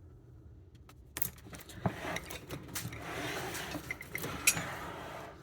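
Tools and gear being handled in a tool tote: rustling and clinking, with scattered sharp clicks and a brief rattle, starting about a second in.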